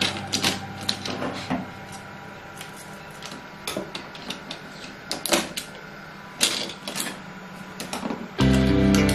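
Irregular clicks, taps and light knocks from hands handling the plastic back and parts of a disassembled LED TV, with scissors picked up and used. Loud background music comes in about eight seconds in.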